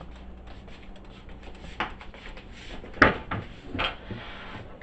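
Kitchen clatter: a few sharp knocks and clunks over a low background hum, the loudest about three seconds in.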